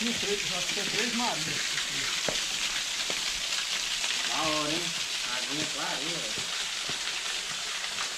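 Mountain bike tyres rolling fast over a loose dirt and gravel trail: a steady crackling hiss, with a few brief voice-like sounds over it.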